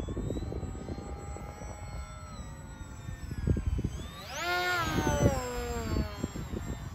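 Brushless electric motor and propeller of a small foam-board RC jet in flight, a pitched whine. About four seconds in it swells and climbs steeply in pitch, then slides back down.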